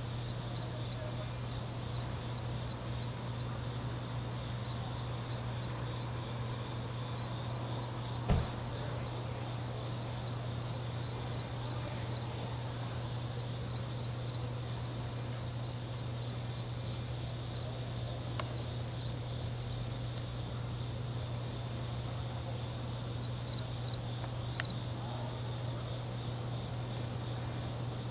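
Insects buzzing steadily in a high, even drone, over a low steady hum. A single sharp knock comes about eight seconds in.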